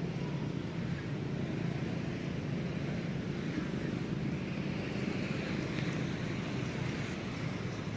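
Steady low rumble of outdoor background noise, even throughout, with no distinct calls or knocks.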